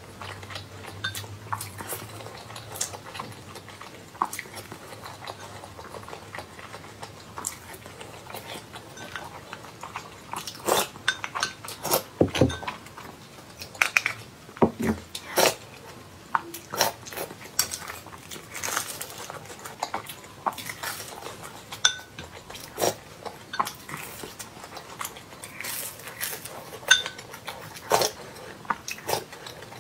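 Close-miked eating: chewing, with a spoon clinking and scraping against a glass bowl in many short, sharp clicks that come thickest around the middle.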